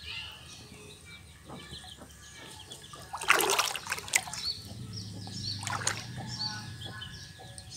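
Hand scoop net swept through shallow pond water, with a few splashes and trickles, the loudest about three seconds in. Birds chirp in the background through the second half.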